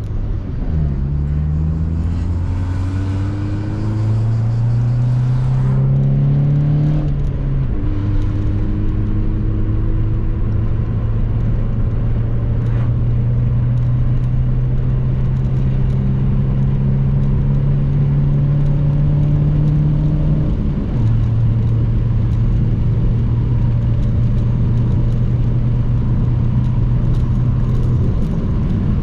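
Honda Civic EG5 four-cylinder petrol engine through an aftermarket exhaust, with a raspy note, accelerating hard and shifting up several times in quick succession, then pulling in a long, slowly rising note. About two-thirds of the way through the pitch drops with another upshift and the engine runs on at a steady speed.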